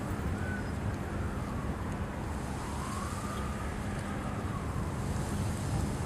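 Steady rush of distant highway traffic, with a faint siren slowly wailing up and down in the middle.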